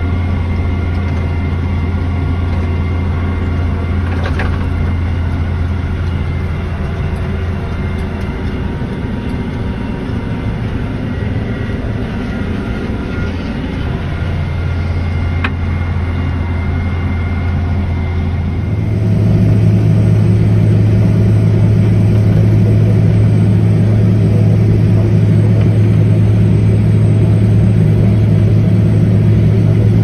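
Tractor diesel engine running steadily, heard from inside the cab. About 19 seconds in it changes to a louder, slightly higher engine drone, the tractor working under load pulling a speed disc.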